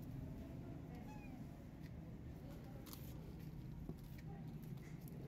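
A cat meowing a few times in short, faint calls, over a low steady rumble.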